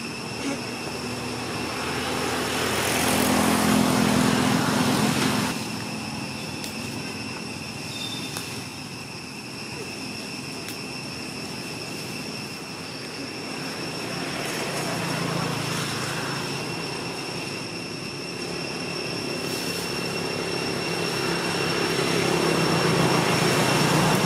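Motor vehicles passing on a nearby road, their sound swelling up and fading away three times, loudest a few seconds in and again near the end. A steady high-pitched whine runs underneath.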